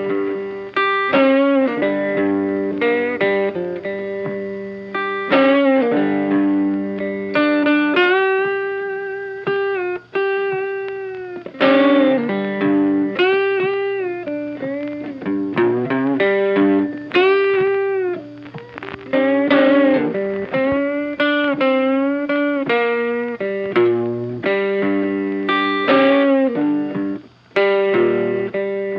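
Background music: an electric guitar playing plucked notes and bent, sustained phrases with a distorted tone.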